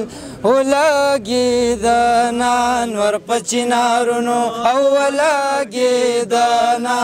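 A man singing a Pashto tappa unaccompanied, drawing out long held notes with wavering turns between short breaths.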